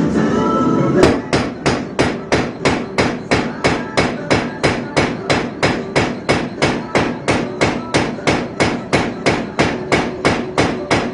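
Blacksmith's hammer striking metal in a steady rhythm of about three blows a second, each with a short ring, starting about a second in.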